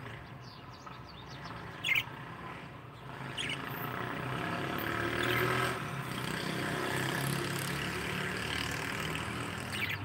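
Pet budgerigars giving a few short, sharp chirps, about two seconds in and again near the end. Under them a steady low rumble grows louder from about three seconds in.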